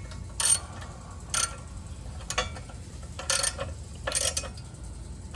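Ratchet with a 15 mm socket clicking in five short strokes, about one a second, as the M10 bumper bolts are snugged down.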